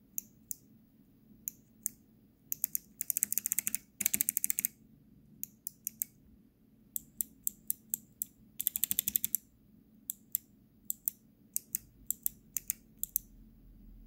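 Kailh Choc low-profile keyboard switches in a clear acrylic sampler frame being pressed bare by a finger, giving sharp clicks. They are tapped one at a time and, three times, in fast runs of rapid presses, the first a few seconds in and another about two thirds of the way through.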